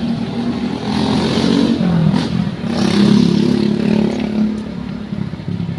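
Street traffic: vehicle engines, among them motorcycles, passing close by, getting louder about one second in and again about three seconds in.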